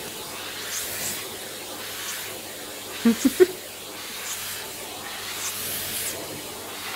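Vacuum cleaner running with its hose nozzle drawn over a dog's coat: a steady hiss and hum with repeated swishes. A brief louder sound breaks in about three seconds in.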